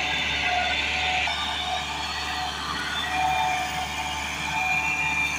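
Massey Ferguson 375 tractor's Perkins diesel engine running steadily under load as it hauls a heavily loaded sugarcane trailer, with a steady high whine over the engine in the second half.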